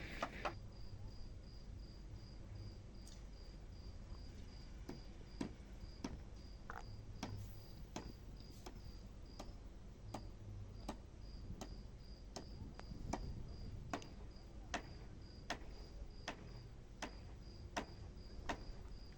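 Faint, evenly repeating high chirps of a cricket, about two to three a second, with scattered faint clicks.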